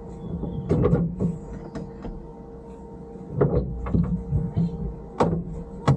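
A stationary off-road car with a steady low engine hum, and a handful of sharp, irregular knocks and clunks over it.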